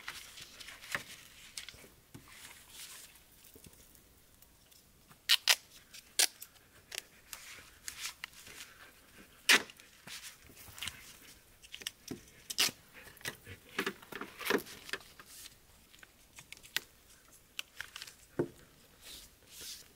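Gorilla Tape being pulled, torn and pressed along the fabric edge of a tailgate awning against a car's body. A run of small ticks and rustles is broken by a few loud, sharp snaps in the middle stretch.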